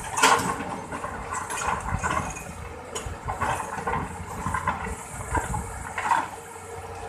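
Hydraulic excavator's diesel engine running steadily, with irregular knocks and scrapes from the machine working soil, the sharpest near the start and about six seconds in.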